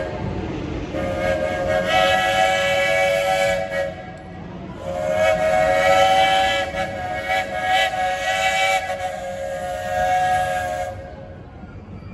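Steam locomotive's chime whistle sounding several notes at once in two long blasts, the second held for about six seconds and wavering in strength.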